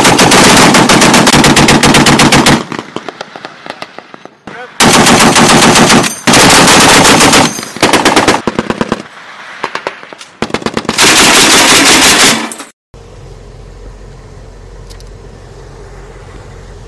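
Browning M2 .50 caliber heavy machine gun firing several bursts of rapid shots, the longest about two and a half seconds, with a few scattered single shots between. The firing stops about three-quarters of the way through, leaving a quieter steady low sound.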